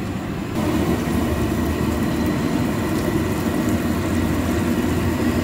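A bhatura sizzling as it deep-fries in a wok of hot oil, starting about half a second in, over a steady low rumble.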